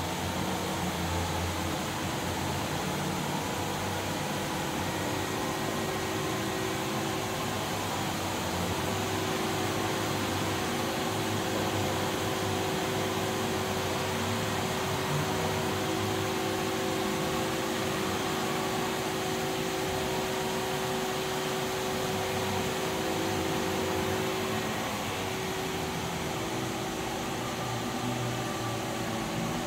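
Steady machine hum with a few faint steady tones from a powered-up You Ji YV-1200ATC CNC vertical boring mill. One tone shifts slightly about three quarters of the way through.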